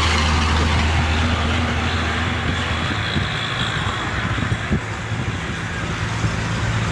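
A heavy road vehicle passes on the bridge: its engine is a loud, steady, low rumble that fades after about three seconds, leaving scattered low knocks and rumble.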